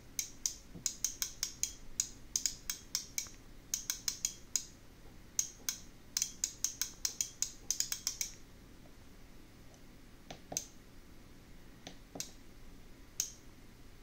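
Small signal relays on a stereo input selector board clicking as a rotary encoder steps through the input channels. The clicks come in quick runs of several a second for about eight seconds, then only a few scattered clicks.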